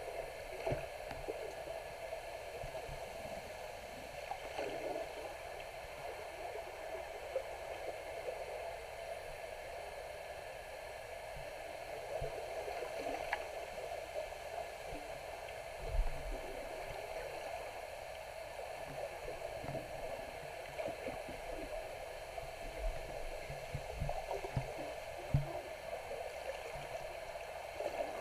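Underwater water ambience picked up by a submerged camera: a steady, muffled watery rush with occasional low thumps and knocks, the loudest about 16 seconds in.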